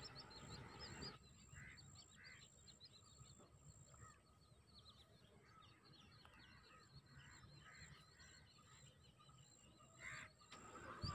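Quiet rural dawn: a faint chorus of small birds chirping, many short high calls throughout, with a few lower calls mixed in. A little low rustling and splashing in the first second.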